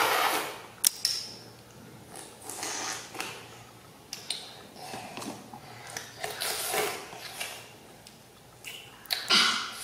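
Green orange being eaten close to the microphone: biting and chewing of a juicy wedge, with the rind of another orange being torn off by hand, in irregular bursts of noise with a sharp snap a little under a second in.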